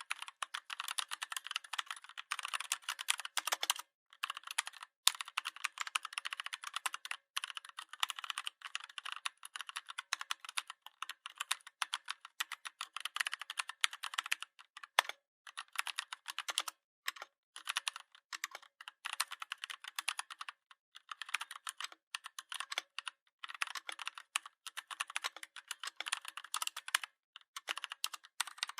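Computer keyboard typing: rapid, continuous keystrokes in quick runs, broken by short pauses of a fraction of a second.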